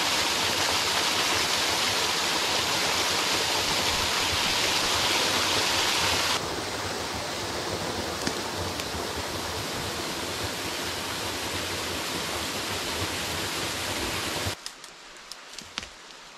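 Steady rush of a small waterfall pouring over rocks into a pool. It steps down abruptly to a quieter rush about six seconds in, then cuts off sharply near the end, leaving a few light rustles and ticks in the woods.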